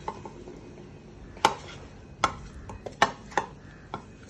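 A spoon or other kitchen utensil knocking and scraping against a bowl while a dough mixture is worked, about five sharp knocks.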